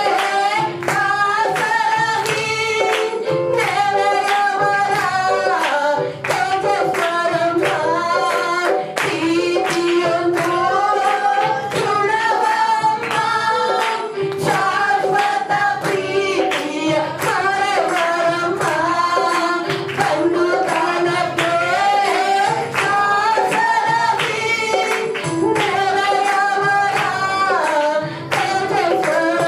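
A devotional song: a man singing into a microphone over a musical accompaniment with a steady beat.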